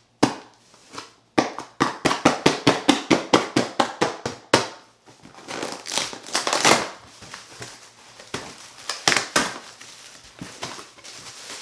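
Scissors snipping through the tape of a cardboard shipping box in a quick, even run of sharp snips, about five a second. They are followed by rougher tearing and rustling as the flaps are pulled open. Plastic air-pillow packing crinkles near the end.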